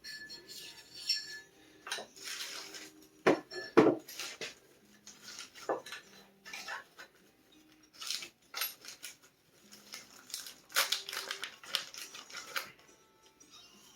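Metal parts being handled, a cold cylinder sleeve and tools: irregular clinks, rattles and scrapes, with two sharp knocks about three and a half seconds in.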